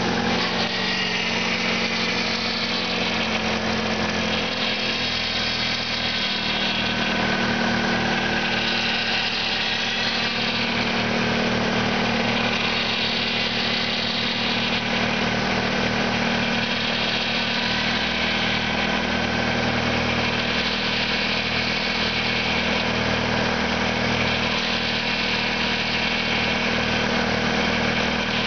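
2001 Ford Escort 2.0-litre four-cylinder engine running at a steady idle during a test run, the idle settling about four seconds in.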